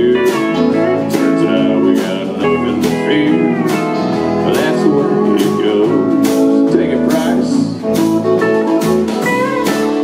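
Live country band playing: pedal steel guitar with sliding notes over electric guitar, electric bass and a drum kit keeping a steady beat.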